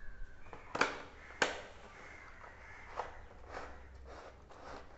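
Cardboard retail box being handled while its black inner tray is slid out of the sleeve: two sharp clicks about a second in, then softer taps and scuffs.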